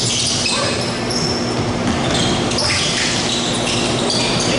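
Basketball game noise in a large gym: the ball bouncing on the hardwood court and sneakers giving short, high squeaks against the floor.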